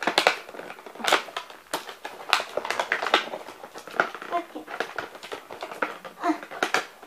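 Clear plastic toy packaging crackling and rustling as it is handled and pulled apart: a string of sharp, irregular crackles.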